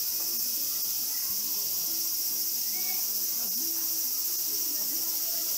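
Steady high-pitched hiss, with faint distant voices underneath.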